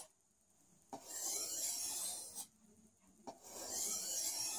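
Knife blade drawn along a sharpening stone in two even rasping strokes, each about a second and a half long with a short pause between. The smooth, sweet rasp is what the sharpener takes as the sign that the edge angle is being held correctly.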